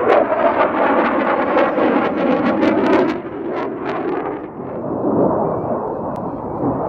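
Roar of the twin J79 turbojets of a McDonnell Douglas F-4EJ Phantom II in flight, crackling through the first four seconds, then turning duller and a little quieter as the jet banks away.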